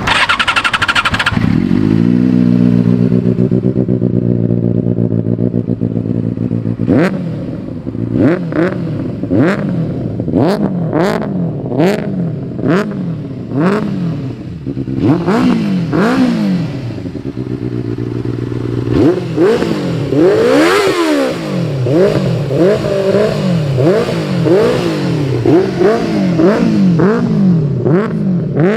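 Motorcycle engine settling into idle about two seconds in, then revved in repeated quick throttle blips, each a short rise and fall in pitch; after a brief idle past the middle the revving resumes, with one longer rev.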